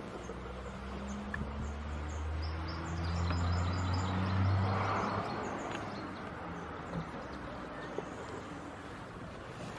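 A low, steady engine hum from a motor vehicle swells to its loudest about four to five seconds in and then stops, while small birds chirp in short repeated notes over the first few seconds.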